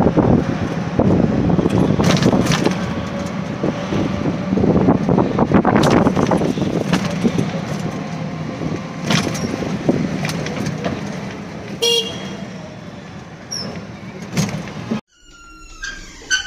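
Road traffic heard while riding in a rickshaw: steady engine and road noise, with a short vehicle horn toot about twelve seconds in. The noise cuts off suddenly near the end.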